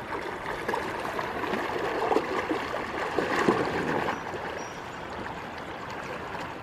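Shallow river running over stones, with a dog splashing as it wades in and starts to swim; the splashing is loudest during the first four seconds, after which the steady sound of the flowing water remains.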